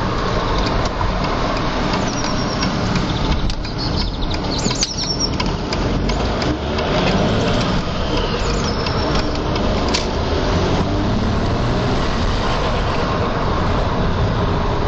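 Audi A6 2.5 TDI V6 diesel engine (AFB) running steadily with a loud odd noise, which the owner says sounds like the turbocharger but is unusually loud.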